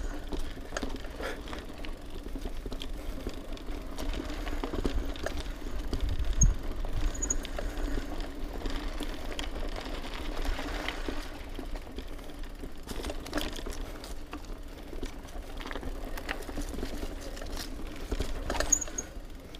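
An off-road vehicle crawling slowly along a rough dirt trail: a steady low engine hum with scattered rattles and knocks from the vehicle going over uneven ground.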